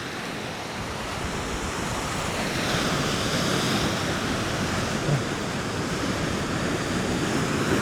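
Heavy ocean swell surging and breaking against rocks, a steady rush of surf that builds louder a few seconds in, with wind buffeting the microphone.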